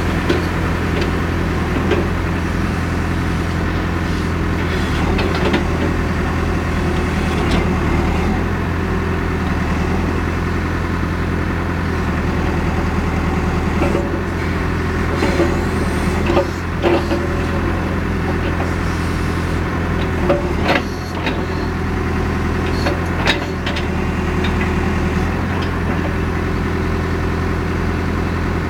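Caterpillar 430D backhoe loader's diesel engine running steadily, heard from inside the cab, with a few short clunks and knocks from the machine being worked, most of them in the second half.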